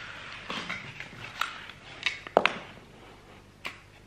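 A picture frame being handled and lifted off a stack of books: a brief rustle, then several light knocks and clicks, the loudest about two and a half seconds in.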